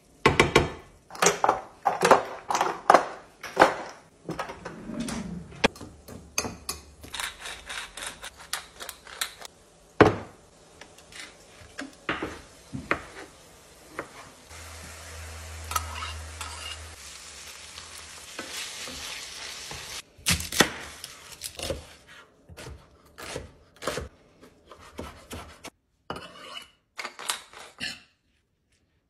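Food-prep sounds: a kitchen knife tapping on a wooden cutting board as tomatoes are diced, with spoon and bowl clinks and stirring. Many sharp knocks run throughout, with a stretch of steady hiss about halfway through.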